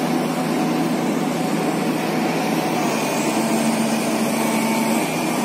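Hydraulic excavator's diesel engine running steadily, a constant hum.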